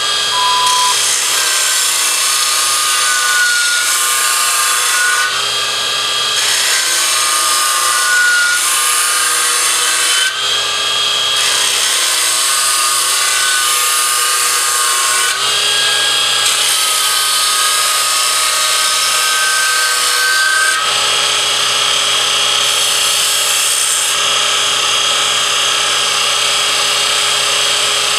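Burr King X400 belt grinder running while a steel blade is sharpened against its abrasive belt, a loud grinding hiss with a whine. It goes in repeated passes of about four to five seconds each, then turns into steadier grinding about three-quarters of the way through.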